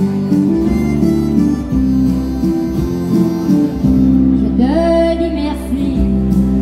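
Live country music: a harmonica playing the melody over a strummed acoustic guitar. A woman's singing voice comes in about four and a half seconds in.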